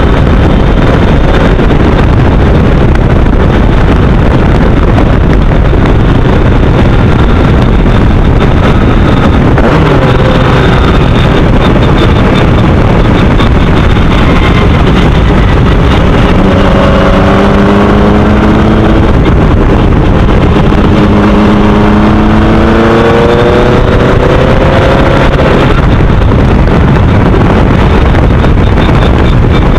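Formel Easter single-seater race car's engine running hard, heard from the cockpit under heavy wind buffeting on the microphone. In the second half the engine note climbs, drops at a gear change about two-thirds through, then climbs again.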